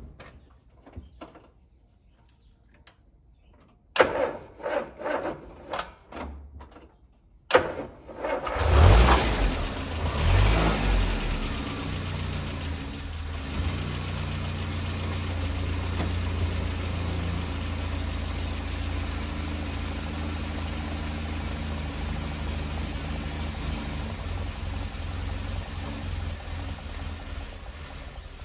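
Land Rover Series 3 2.25-litre petrol four-cylinder being cold-started. About four seconds in, the starter cranks sluggishly in a string of slow turns, pauses, cranks again, and the engine catches about eight seconds in. It revs briefly, then settles to a steady idle on little choke. The slow cranking is what the owner puts down to a tired battery that is not very strong anymore.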